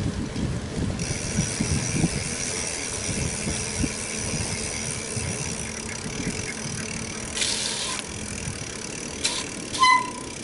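Bicycle ridden over a concrete sidewalk: a low rumble from the tyres with the frame rattling and knocking over the pavement joints. A short high squeal comes near the end.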